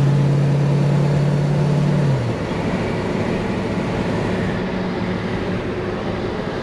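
Ford 7.3 Powerstroke turbo-diesel V8 droning steadily inside the cab at highway speed, over road noise. About two seconds in, the engine note drops a little lower and quieter. The owner suspects the turbo isn't spinning.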